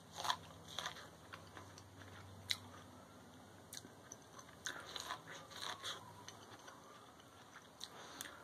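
A person biting into an ear of 'Bodacious' sweet corn on the cob, then chewing the kernels: crisp crunches and clicks, scattered at first and clustered around five to six seconds in.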